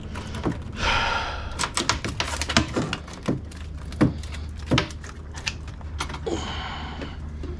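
Irregular clicks and knocks of something being handled in a small fishing boat, with a brief hissing rush about a second in and another near the end, over a steady low hum.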